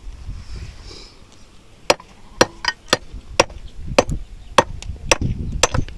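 Firewood being chopped: about nine sharp strikes on wood, roughly two a second, starting about two seconds in.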